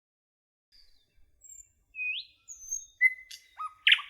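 Birds chirping: scattered short whistled notes and quick up-and-down glides, building near the end into a rapid run of chirps about four a second.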